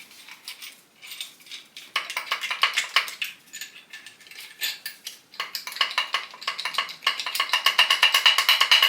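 Steel tools and engine parts clinking during removal of the LS1's main bearing caps. From about seven seconds in, this turns into a fast, steady run of clicks, like a hand ratchet being worked.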